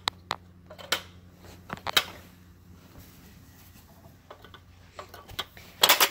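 Scattered clicks and clacks of a hard plastic baby activity toy being handled, with a louder clatter near the end, over a faint steady hum.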